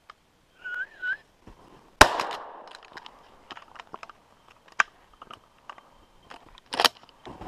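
A shotgun shot about two seconds in, its report fading out over a second, followed by light snapping and brushing of branches and a second loud sharp crack near the end.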